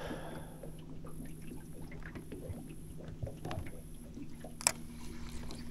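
Electric trolling motor humming steadily, its pitch stepping up about four and a half seconds in as it holds the boat on spot lock, with light scattered ticks and one sharp click near the end.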